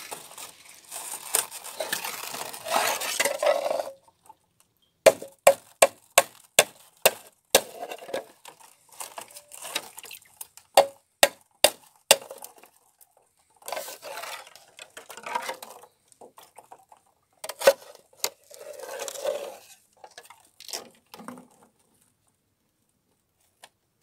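Thin ice on a tub of water being struck and broken up with a plastic scoop: scraping first, then a quick run of about a dozen sharp cracks and clinks, then scattered bursts of scraping and splashing as ice shards and water are scooped.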